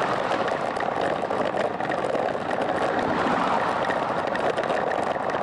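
Steady rushing of wind and road noise on a bicycle-mounted camera's microphone while riding along at about 20 km/h.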